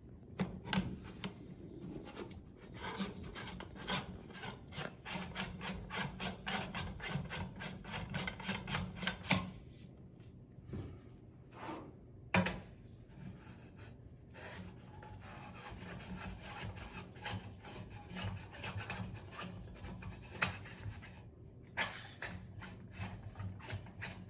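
Tool-cart poles being screwed by hand into their threaded sockets: a fast run of rasping clicks and scrapes from the turning threads, several a second, with short pauses partway through.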